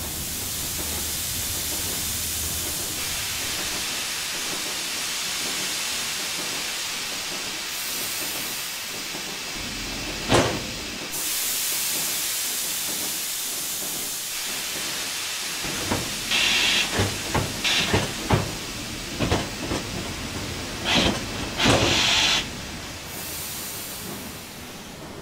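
Steam hissing steadily from a dry cleaner's garment press, with a sharp clack about ten seconds in, then a run of short hissing blasts and knocks in the second half.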